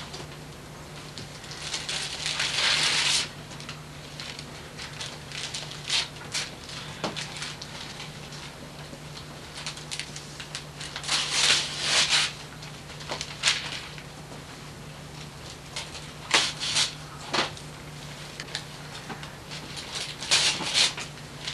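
Wrapping paper tearing and crinkling in several short bursts as a present is unwrapped, with a few light knocks of a cardboard box, over a steady low hum.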